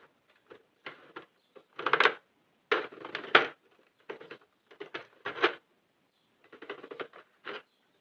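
Plastic Sentro 48 circular knitting machine worked by hand in several short spurts, its needles clattering in quick runs of clicks as they are advanced round to the next needle to be wrapped.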